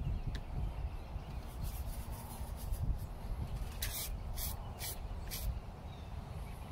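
WD-40 aerosol can sprayed through its straw onto the rear wiper arm's pivot nut: four short hissing bursts starting about four seconds in, with a few fainter puffs before them, over a low rumble.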